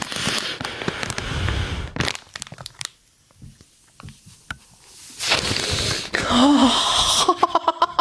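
Long, deep sniffs into a zip-top plastic snack pouch, the pouch crinkling and rustling between them; a short burst of laughter near the end.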